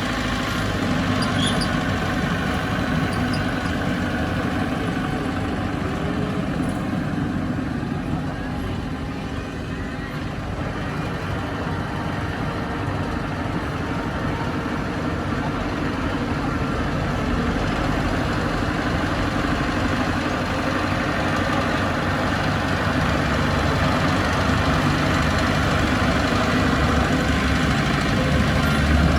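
Bulldozer's diesel engine running steadily, a little quieter about a third of the way in and louder near the end.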